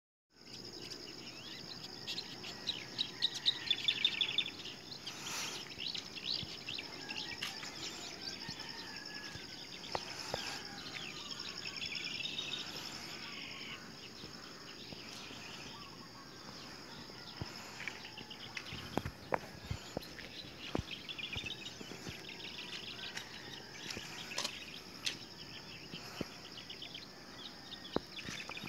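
Outdoor rural ambience: a steady high-pitched insect drone, with birds chirping in quick runs of notes several times, loudest about three to four seconds in. A few sharp clicks stand out in the second half.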